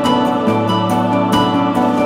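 Calm new-age style instrumental background music: sustained tones over a held bass, with evenly spaced notes.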